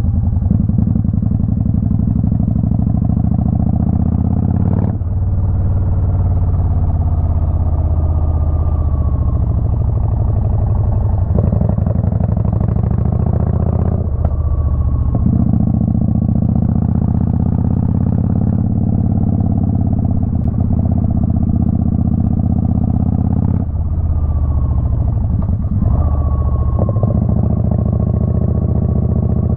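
Twin-cylinder motorcycle engine running under way, its note stepping up and down several times as the rider changes speed, with two brief drops in level, about five seconds in and again near the end.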